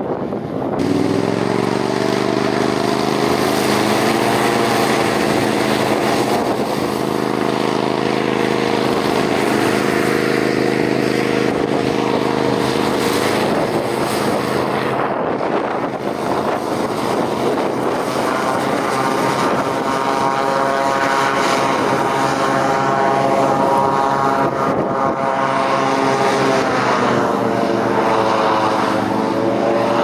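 Christy 7186 FC hovercraft under way: a steady drone of its engines and caged air propeller over a rush of air. A higher-pitched tone joins in the second half and swings up and then down near the end.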